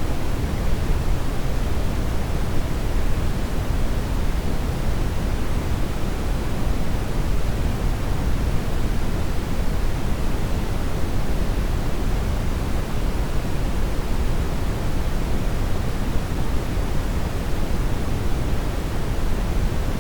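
Steady, unchanging colored noise made for tinnitus masking: an even hiss with no events, fuller in the lows than in the highs.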